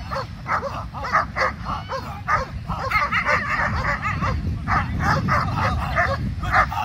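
Dogs barking rapidly and repeatedly, about two to three barks a second with calls overlapping, as a leashed German shepherd-type dog is agitated by a decoy in protection training. A steady low rumble of surf runs beneath.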